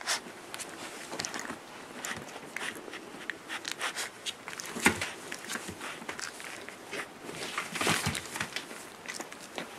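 Whippet puppies shuffling about on spread newspaper, with a hand handling them: a string of soft, irregular rustles and scratches, loudest about five seconds in and again around eight seconds in.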